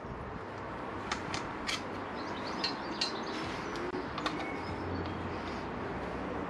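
A handful of small, irregular metallic clicks and taps from a socket tool and bolts being undone from the generator cover of a motorcycle engine, over a steady faint background hum.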